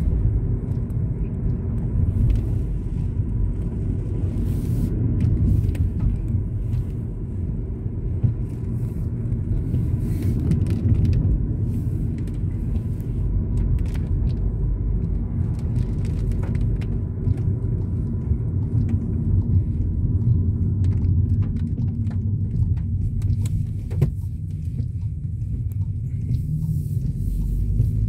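Steady low rumble of a car's engine and road noise heard from inside the cabin while driving, with a few faint clicks.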